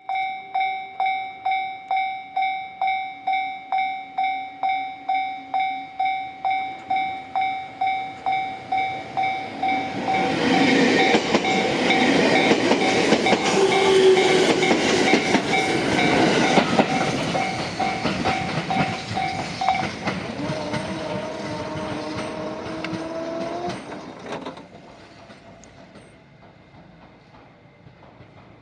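A Japanese railway level crossing's electronic warning bell rings about twice a second. The E491 East i-E electric inspection train then rolls through while slowing, its wheels clacking over the rail joints. The bell stops partway through the passage, and the train noise falls away near the end.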